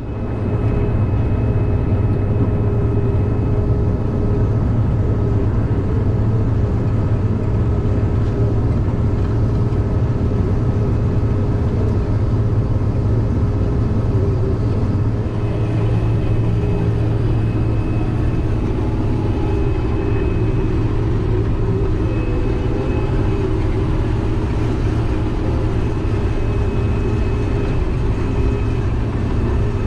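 Combine harvester running steadily, a loud low engine hum with several high whining tones from its machinery; about halfway through the tones shift as the machine's working load changes.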